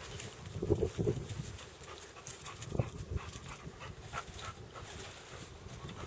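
Drug-detection dog working a search, panting, with a couple of louder short sounds about a second in.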